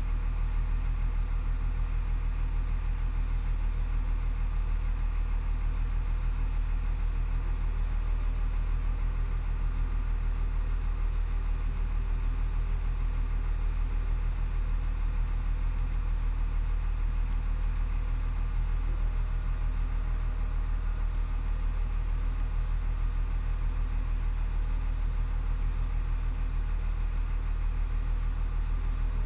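Freshly overhauled Volvo D7E six-cylinder diesel in an L120F wheel loader idling steadily at low idle, about 770 rpm, heard from inside the cab.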